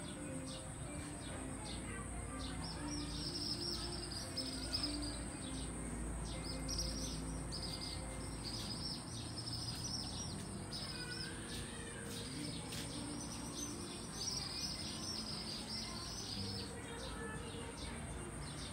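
Birds chirping in repeated bursts of about a second each, over a steady high-pitched hum.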